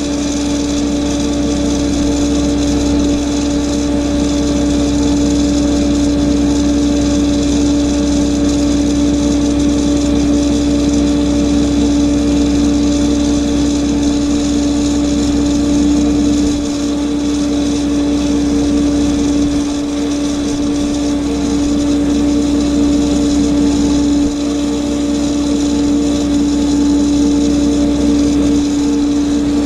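Walinga bulk feed trailer's High Output Auger system running steadily while unloading feed: a continuous mechanical drone with a strong constant hum, dipping briefly a couple of times.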